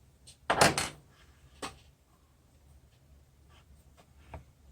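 A few sharp metal clicks and one short, louder clattering scrape about half a second in: tools and parts being handled at a small benchtop lathe while it is stopped, as a center drill is set up.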